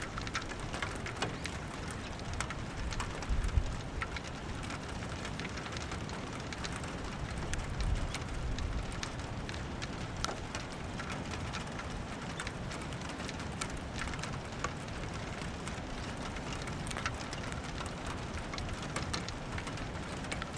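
Steady rain falling, with many single drops ticking close by and two brief low rumbles about three and eight seconds in.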